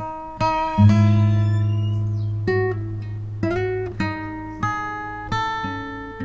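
Acoustic guitar music: single plucked notes ringing out one after another, with a low bass note struck about a second in that rings under them.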